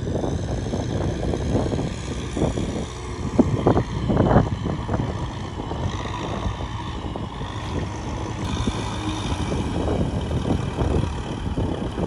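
Farm tractor engine running steadily, with a few sharp clattering knocks about three to four and a half seconds in.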